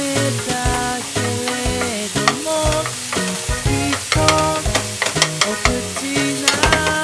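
Background music with a changing melody over ground meat and onions sizzling in a frying pan. Chopsticks stirring the mixture click sharply against the pan, mostly in the second half.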